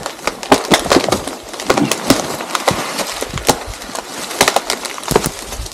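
Dry branches and twigs cracking and rustling as brush is pushed and bent aside: a run of irregular sharp snaps and clicks over a dry rustle.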